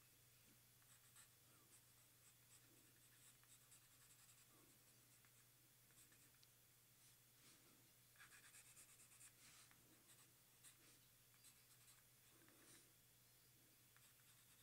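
Soft 2B graphite pencil sketching on a paper card in short, faint scratching strokes, with a quicker run of strokes about eight seconds in.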